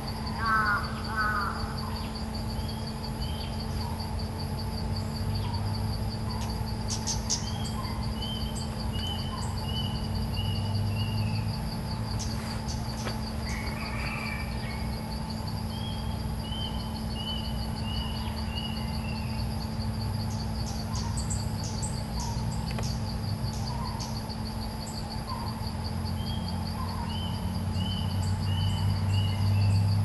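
Bulbuls calling, a caged decoy bird and a territorial wild one: a couple of quick chirps at the start, then a short phrase of about six clear notes stepping down in pitch, repeated three times. A steady, high insect trill runs underneath.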